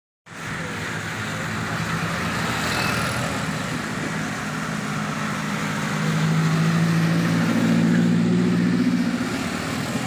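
Traffic on a wet road: a steady hiss of tyres on wet asphalt, with a light truck's engine hum swelling as it passes, loudest about eight seconds in and fading just before the end.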